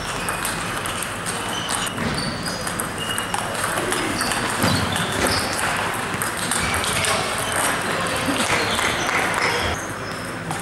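Table tennis balls clicking off bats and tables in rallies, the sharp pings coming from several tables at once, over a steady murmur of voices in a large sports hall.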